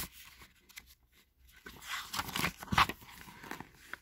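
Paper rustling and handling of a picture book as a page is turned, a short cluster of rustles and clicks about two seconds in.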